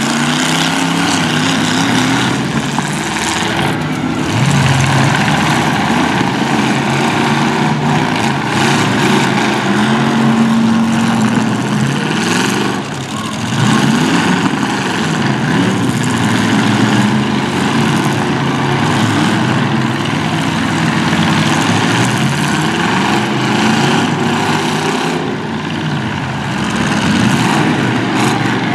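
Several demolition derby car engines running and revving up and down over one another, with a few short bangs from cars hitting.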